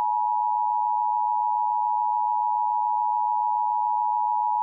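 Emergency Alert System attention signal: a loud, steady two-tone alarm held without a break, announcing that an emergency alert message follows.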